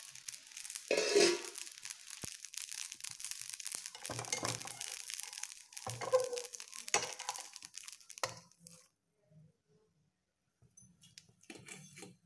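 Appam batter sizzling and crackling in a hot appam pan, with a knock of the steel lid about a second in. The crackle cuts off about nine seconds in, and a short burst of crackle and handling follows near the end.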